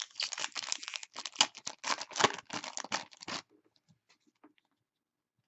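Foil wrapper of a hockey-card pack being torn open and crinkled, a dense run of crackling for about three and a half seconds.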